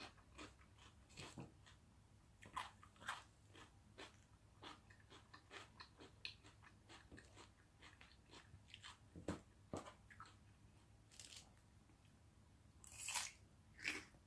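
A person chewing and biting crunchy food close to the microphone: a steady run of faint crunches and mouth clicks, with a few louder crunches in the second half.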